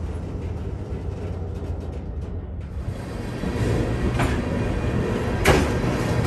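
Slow freight train cars rolling past on the rails with a steady low rumble, and two sharp clanks from the passing cars, about four and five and a half seconds in, the second louder.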